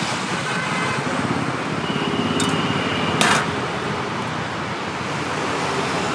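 Steady road traffic noise, with a faint horn-like tone about two and a half seconds in and a brief sharp noise just after three seconds.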